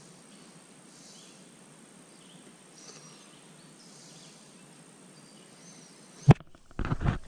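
Quiet outdoor background with faint bird chirps. About six seconds in, a sharp knock close to the microphone, followed near the end by a second of loud rubbing and handling noise.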